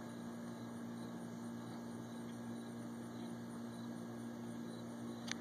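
A steady low hum, one unchanging tone over a faint hiss, with a single small click near the end.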